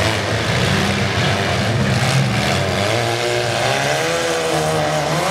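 Several four-cylinder demolition derby cars' engines running and revving, with engine pitch rising and falling over the second half.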